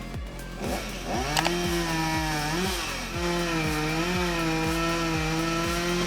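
Chainsaw engine running at high revs, its pitch climbing about a second in, dipping briefly near the middle, then holding steady.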